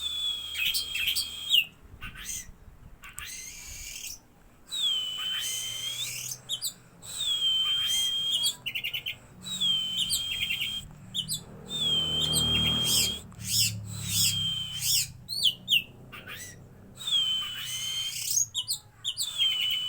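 White-breasted oriental magpie-robin (kacer dada putih) singing: a loud, varied song that returns again and again to a held whistled note about a second long with an upturned end, mixed with quick chirps and, near the middle, a short rapid trill.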